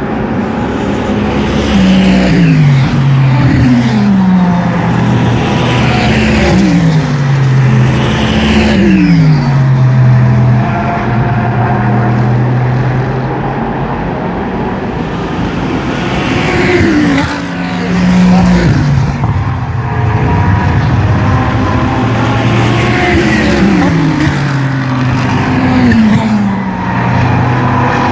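GT3 race cars braking one after another, each engine's pitch falling in quick steps as it downshifts through the gears, then holding low before the next car comes through.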